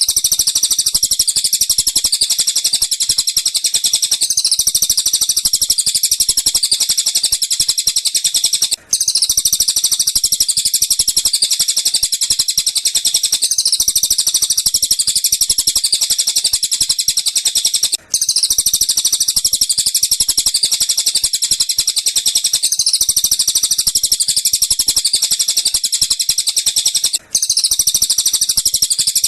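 Recorded birdsong of dense, rapid, high-pitched chirping and trilling, played as a loop. It breaks off for an instant about every nine seconds and then starts again. This is a training track meant for teaching a lovebird to copy the calls.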